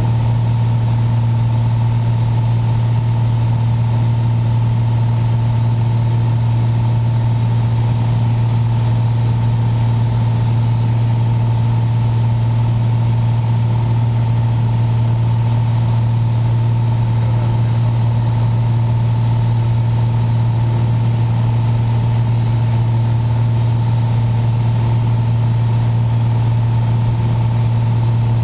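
Piper Saratoga's six-cylinder Lycoming engine and propeller running steadily in flight: a loud, even, deep drone that does not change.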